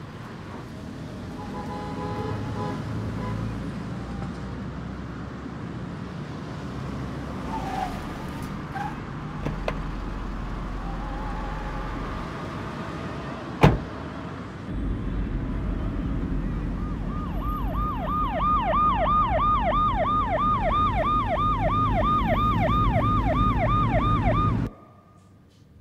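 A car door shuts with a single sharp knock about halfway through, then a car engine runs with a low rumble. In the last third a police siren sounds in quick rising yelps, about three a second, and cuts off suddenly shortly before the end.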